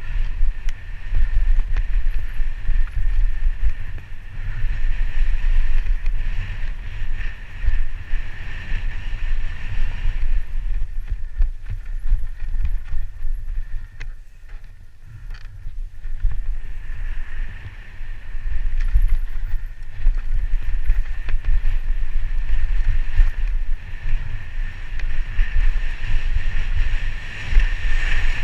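Downhill mountain bike running fast over a dirt trail, heard from a helmet-mounted camera: heavy wind buffeting on the microphone with the rattle and rumble of tyres and bike. It goes quieter for a few seconds about halfway through on a smooth paved stretch, then picks up again.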